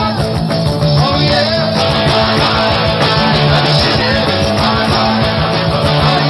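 Rock band playing live, with electric guitars, bass and drums in an instrumental passage without vocals.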